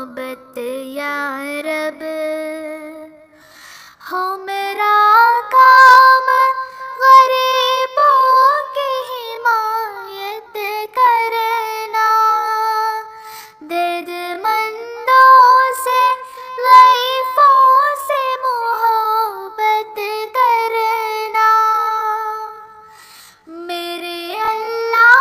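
A high solo voice singing an Urdu devotional prayer song in long, held phrases with wavering pitch. It pauses briefly about three seconds in and again near the end.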